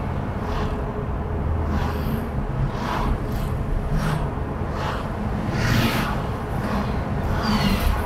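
City street traffic from a moving car: a steady low road rumble with brief swells as other vehicles pass. Near the end there is a short, high falling squeak.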